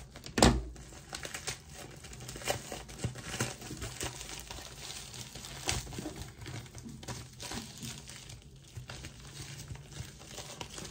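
White plastic mailer bag crinkling and crackling as it is handled and torn open, in many irregular short bursts, with one loud sharp crackle about half a second in.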